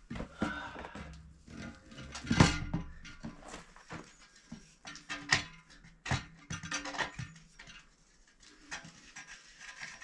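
Background acoustic guitar music over a run of irregular knocks and clanks, the loudest about two and a half seconds in, as the steel sand point pipe is handled and lowered into the well casing.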